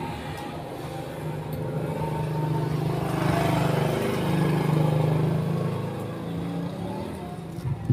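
Kawasaki Ninja 250 parallel-twin engine idling on its stand. It gets louder twice in the middle, with a sharp knock at the very end.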